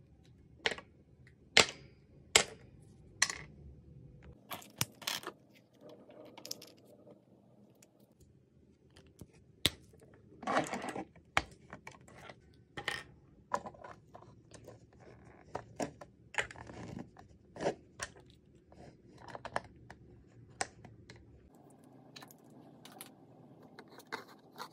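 Sharp plastic clicks and taps at irregular intervals as Crayola markers are handled and pushed into the ports of a plastic Crayola Marker Mixer, with a longer scratchy stretch of handling about eleven seconds in.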